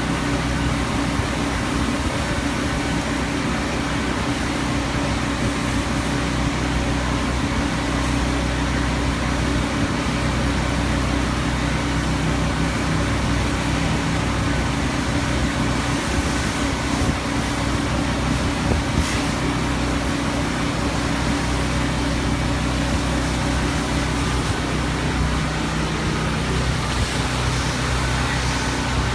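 Car wash machinery running steadily: a constant low hum with an even hiss over it.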